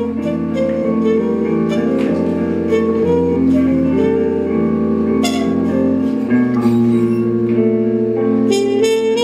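Live duo of trumpet and guitar playing long held, layered notes over a looped guitar drone; the low drone steps up in pitch about six seconds in.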